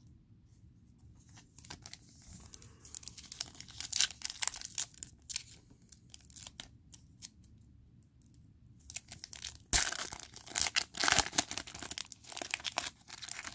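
Foil wrapper of a 2020 Elite football card pack being torn open and crinkled by hand. The first part holds only faint scattered crinkles; about ten seconds in, the foil gives loud tearing and crackling as the wrapper is ripped open and peeled back.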